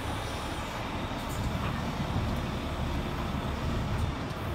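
Boom crane truck's diesel engine running steadily, a low rumble.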